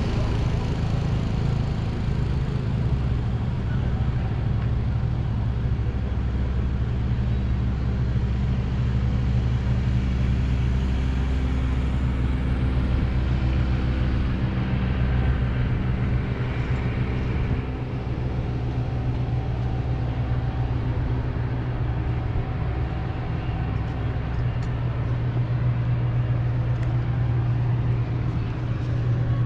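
Steady low engine hum, a motor running without a break, with a few extra higher tones coming and going midway.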